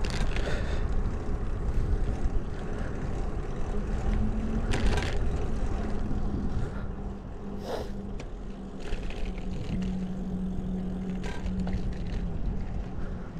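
Riding noise from a moving bicycle: wind rumbling on the microphone and tyre noise on asphalt. A steady low hum comes in about four seconds in and fades near the end, and four short sharp knocks are spread through it.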